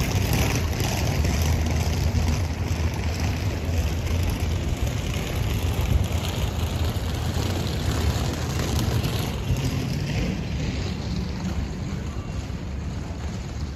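Steady low rumble of wind buffeting the microphone outdoors, uneven and without distinct events.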